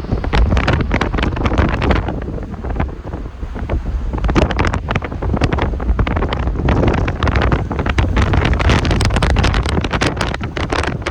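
Strong gusting wind buffeting the microphone: a heavy low rumble broken by irregular sharp blasts throughout.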